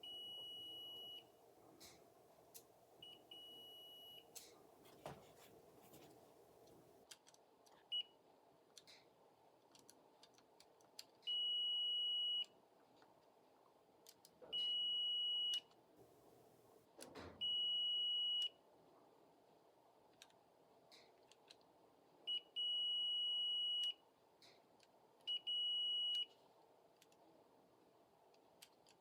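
A multimeter's continuity beeper sounding a steady high tone, roughly a second at a time, about eight times with a few very short blips, as selection levers of a Rock-Ola 1448 jukebox selector assembly are flipped by hand. Each beep means continuity to ground: a selection is registered. Sharp clicks come between the beeps.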